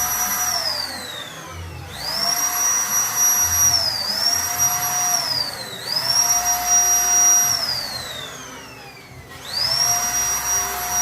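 Zipper electric paint spray gun running in bursts. Each time it is switched on, its motor whines quickly up to speed and runs steadily with an airy hiss. When released, the whine winds down slowly. It goes through about four such cycles, briefly re-triggered just before it fully stops around four and six seconds in.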